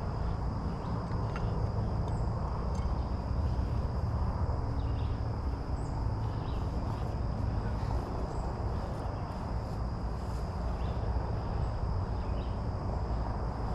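Steady low background hum with a constant high-pitched whine above it, and a few faint light clicks; no hammer blows stand out.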